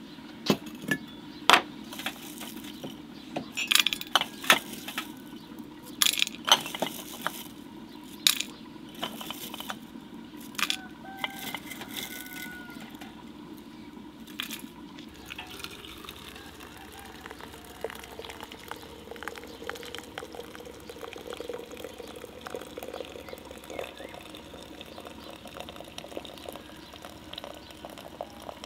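Sharp glass clinks as dried rosebuds are handled and dropped into a glass teapot. About halfway in, water starts running from a samovar's tap into the glass teapot, and the pitch rises as the pot fills.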